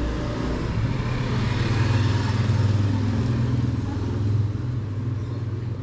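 A motor vehicle engine runs nearby as a steady low hum, with road noise that swells about two seconds in and eases off near the end.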